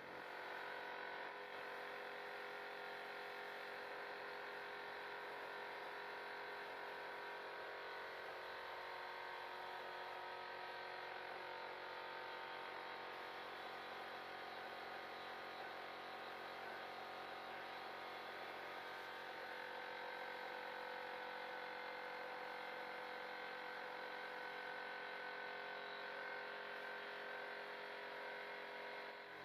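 A steady mechanical hum with several constant tones that stays even throughout.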